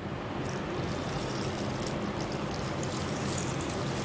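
Water pouring in a steady stream from a plastic jug onto basmati rice in a glass bowl, beginning about half a second in: the first rinse of the rice.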